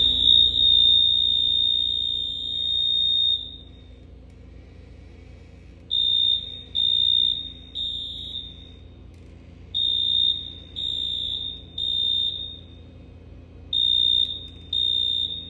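ADA doorbell signaller sounding a high-pitched alarm-like tone. It gives one long ring of about three and a half seconds, then is pressed in three groups of three short beeps, the three-pulse pattern of a fire alarm.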